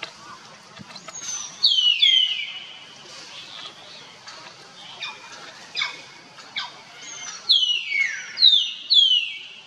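A series of loud, high-pitched animal calls, each sliding steeply down in pitch. They come in a cluster about a second and a half in, then as a few shorter single calls, then in a second cluster from about seven and a half seconds in.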